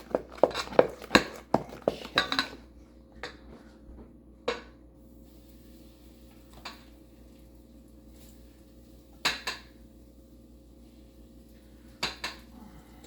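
Kitchen utensils clinking against a bowl and griddle: a quick clatter of clinks for the first couple of seconds, then occasional single clinks and pairs. A faint steady hum runs underneath.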